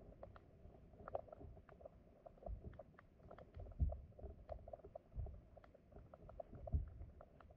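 Stream water flowing over rocks, heard underwater: a scatter of small clicks and ticks, with a few low muffled thumps.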